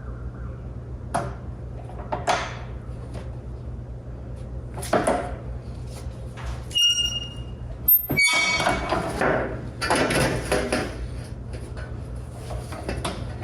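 Thin galvanized sheet steel being worked on a sheet-metal brake: scattered clanks and rattles as the sheet is handled and bent. The sheet rings sharply twice, about seven and eight seconds in, followed by a few seconds of clattering. A steady low hum runs underneath.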